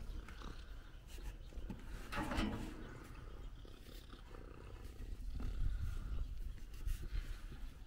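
An animal's short call, about two seconds in, over a low steady rumble.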